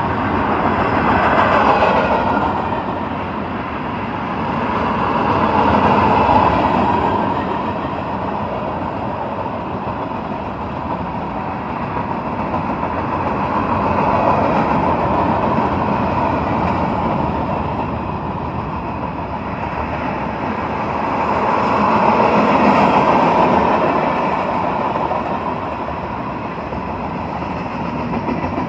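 Freight train cars rolling past at speed: steady wheel-on-rail noise that swells and fades several times as the cars go by.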